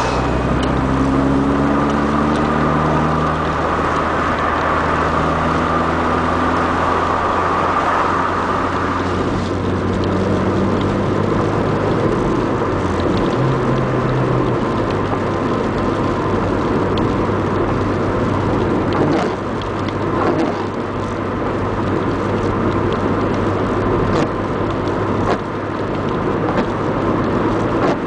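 In-cabin sound of a Mk3 VW Golf GTI 16v on the move: its 2.0-litre 16-valve four-cylinder engine pulls with a rising note over the first several seconds. It then settles into a steady cruising drone under tyre and road noise.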